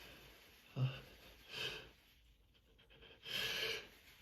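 A person with hay-fever allergies taking sharp, noisy breaths between sneezes: a short breath about a second in, another just after, and a longer, louder inhale about three seconds in, the gasping build-up to the next sneeze.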